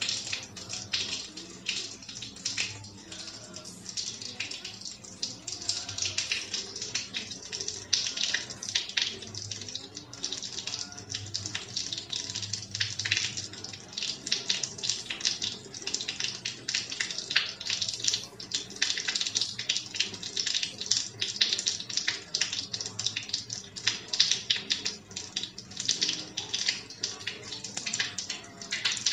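Rain falling steadily, a dense crackling patter of drops.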